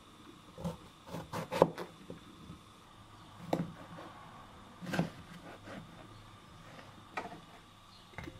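Chef's knife cutting aubergine strips and knocking on a plastic cutting board: a quick run of chops about a second in, then single knocks every second or two.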